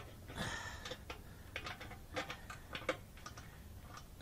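Irregular light clicks and knocks of plastic and metal as the Harley-Davidson fuel pump and filter assembly, with its corrugated plastic hose, is handled and fitted into the fuel tank opening, with a short scraping rush about half a second in.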